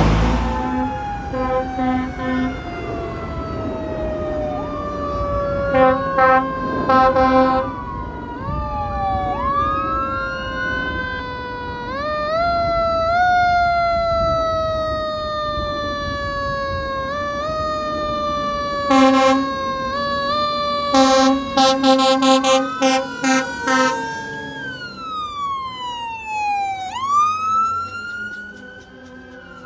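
Sirens on fire trucks driving past, several at once, each wailing slowly up and down in pitch. Loud bursts of rapid horn blasts come about six seconds in, again around nineteen seconds and from about twenty-one to twenty-four seconds. Near the end one siren winds down and then rises again.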